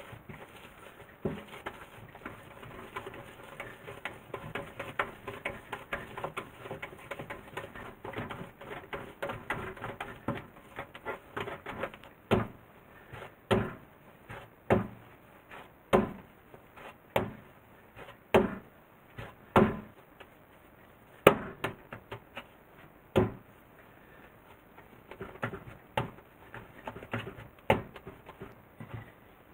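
Soy-milk bread dough being kneaded by hand on a wooden pastry board: a run of small, sticky, squelching smacks as the wet dough is rubbed and pushed, then, from about twelve seconds in, separate thumps about once a second as the firmer dough comes down on the board.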